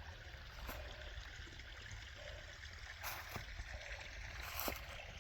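A small hillside spring trickling and flowing out of the mountain, a faint steady splashing of water, with a few faint ticks now and then.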